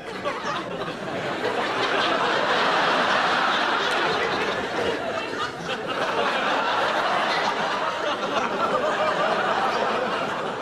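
Studio audience laughing, building over the first two seconds, holding, then easing off a little near the end.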